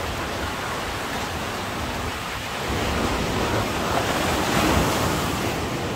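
Sea surf washing onto a beach: a steady rush of breaking waves that swells louder about halfway through as a bigger wave comes in.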